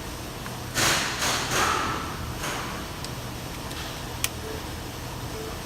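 Plastic scraping and rustling as the wiring harness connector is worked onto the new ignition switch, then one sharp click about four seconds in, the connector latching into place.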